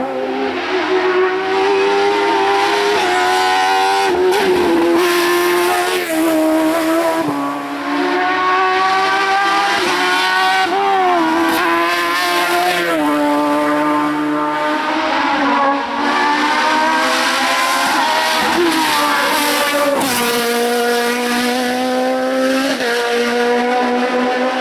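Race car engine at high revs, climbing in pitch and dropping back at each gear change, several times over as it is driven hard.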